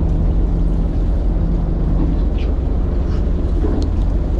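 Fishing boat's engine running steadily, a loud low drone with a constant hum.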